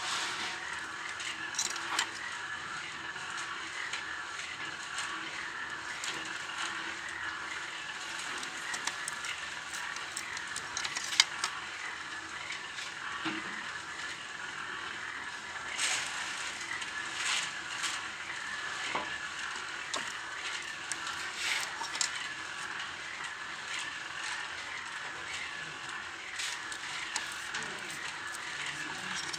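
Hand-lever corner-notching machine cutting the corners of a small sheet of thin sheet metal: scattered clicks and clacks of the blade and lever, the loudest about eleven seconds in, over a steady background hiss.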